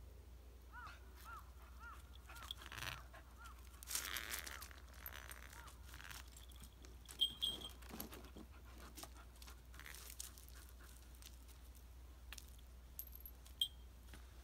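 A small beagle-type dog's paws crunching and scuffing over loose gravel, with the light jingle of its collar tags now and then. A short run of faint, evenly spaced high chirps near the start.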